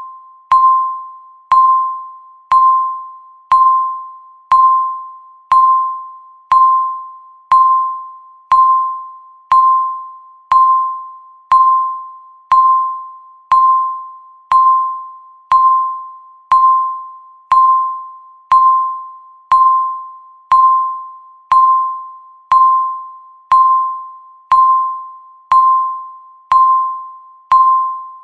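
Electronic countdown-timer tick: a sharp click followed by a single clear ringing tone that fades away, repeating steadily once a second.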